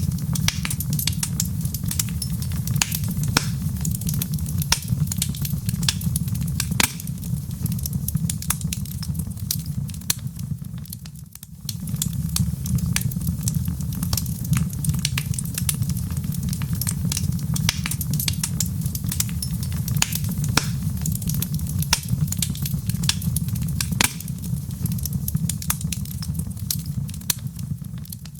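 Wood fire burning in a fireplace, crackling with frequent sharp pops over a steady low rumble of the flames. The sound dips briefly about eleven seconds in.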